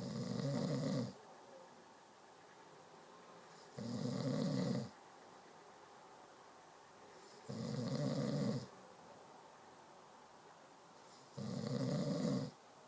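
A sleeper snoring in a slow, regular rhythm: four snores, each about a second long, coming about every four seconds.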